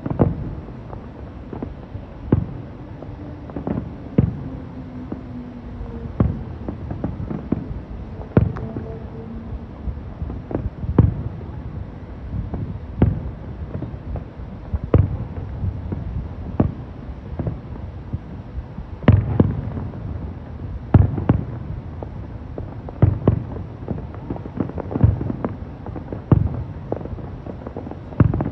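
Fireworks going off: a long run of sharp bangs, one every second or two, over a steady low rumble.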